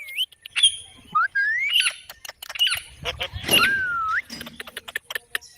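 A parrot whistling and chirping: several short sliding whistles, a longer whistle that dips and rises again about two-thirds of the way through, then a quick run of sharp clicks near the end.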